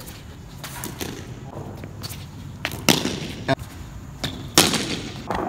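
A cricket ball being struck and knocking off hard surfaces in an indoor cricket arena: a few sharp single knocks, the loudest about three seconds in and two more over the next couple of seconds.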